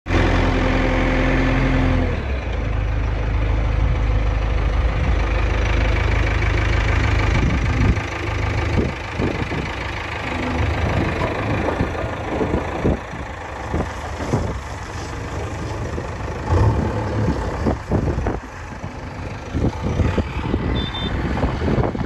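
Diesel engine of a JCB 3DX backhoe loader running as the machine works its front loader and drives off, with irregular knocks and thumps from about eight seconds in.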